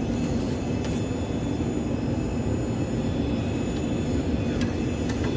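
Steady jet-aircraft noise: a low drone with several high, steady whining tones over it, and a few faint clicks.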